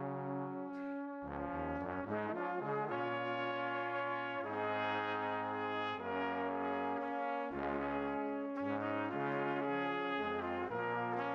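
Background music: a brass-led melody over a moving bass line, with notes changing every half second or so.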